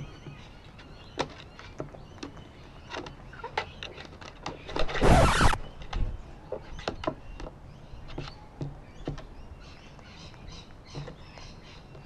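Sulphur-crested cockatoo's beak pecking and tapping at a plastic seed box and scattered seed, a run of sharp irregular clicks. About five seconds in there is one loud, harsh cockatoo screech lasting under a second.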